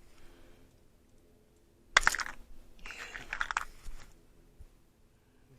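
Hand wire stripper working a wire: a sharp snip about two seconds in, then about a second of crunching as insulation is cut and pulled off the end so the wire can be restripped.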